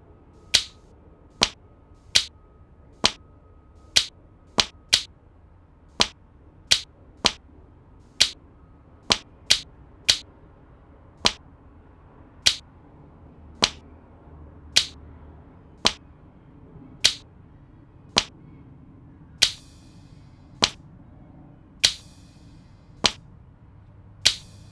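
Sharp snapping clicks in a loose beat, about one a second, settling into an even pace just over a second apart in the second half, over a faint low hum.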